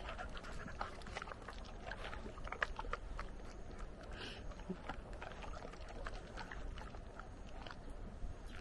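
Hunting dogs chewing and licking up jerky off concrete close to the microphone: a string of irregular small clicks and mouth noises.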